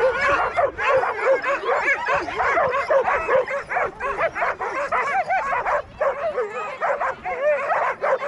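A team of sled dogs giving a continuous overlapping chorus of high calls that rise and fall, many dogs at once with no break. This is the excited clamour of sled dogs being harnessed and hooked to the gangline before a run.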